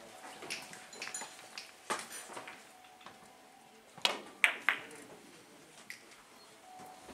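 Three-cushion billiard shot: about four seconds in, the cue tip strikes the cue ball, followed by two sharp clicks of balls hitting each other. Lighter ball clicks sound earlier on.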